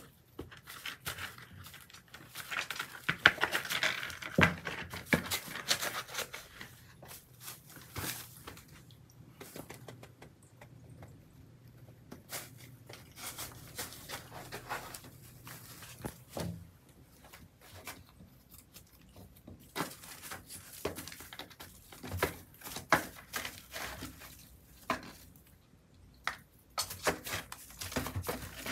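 A kitten's paws rustling and crinkling through a box of shredded newspaper as it steps about and scratches at the strips, in irregular spurts, busiest a few seconds in.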